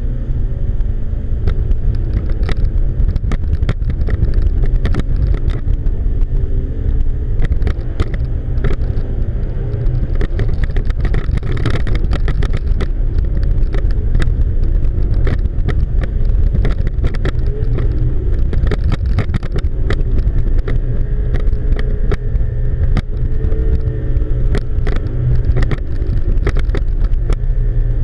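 Twin outboard motors running steadily under heavy load, pulling a grounded boat on a tow line, with frequent short knocks throughout.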